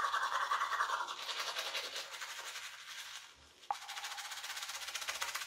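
Manual toothbrush scrubbing teeth with quick back-and-forth strokes through a mouthful of foam, loudest in the first second. About three and a half seconds in the sound breaks off briefly with a click, then the brushing carries on.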